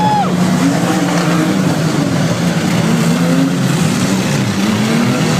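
Several banger-racing cars' engines revving together on the track, their pitches rising and falling against one another over a steady din.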